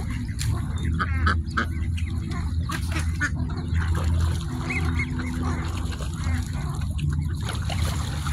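Ducks at a pond giving a few short calls over a steady low rumble.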